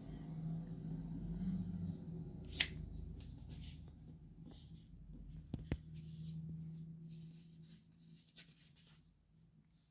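Quiet handling of a glossy magazine and a hand-held camera: a few light clicks and taps with faint paper rustling over a low hum, fading almost to nothing near the end.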